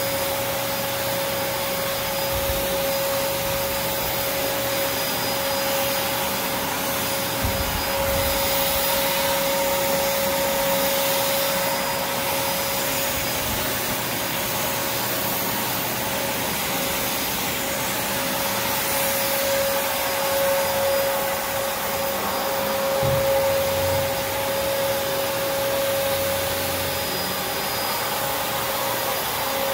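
Prolux X8 Elite backpack vacuum running steadily: a constant rush of suction with a steady pitched hum from the motor.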